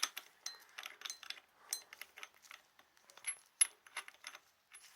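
Irregular light metallic clicks and clinks of hand tools and small metal clutch parts being handled, a few with a brief high ring.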